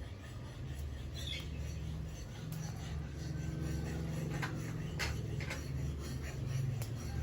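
Two kittens playing: light scuffling with a few sharp clicks and scratches in the second half and a short high squeak about a second in, over a low steady hum.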